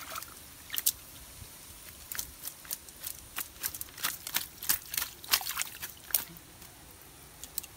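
Shallow pond water splashing in quick, irregular bursts, thickest between about two and six seconds in, as netted fish thrash and are worked free of a cast net.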